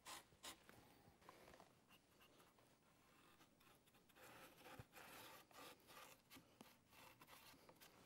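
Faint, intermittent scratching and rubbing of a foam brush spreading finish over textured cedar shingles.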